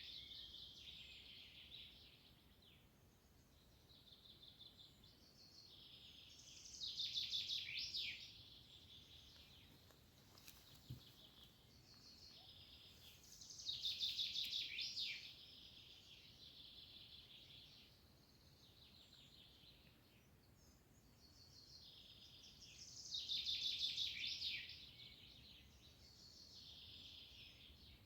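A songbird singing the same short, high song about every eight seconds, each phrase a fast run of notes that ends in quick downward sweeps, over faint outdoor background noise.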